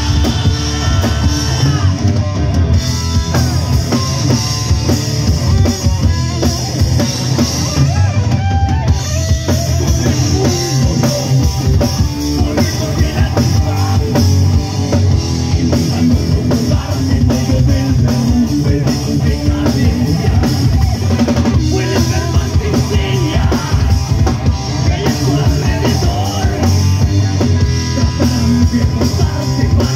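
Live rock band playing loud: electric guitar, electric bass and drum kit, with a lead singer.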